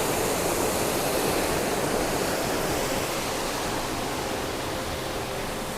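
Steady rushing of a mountain waterfall cascading down a gorge, growing slightly fainter toward the end.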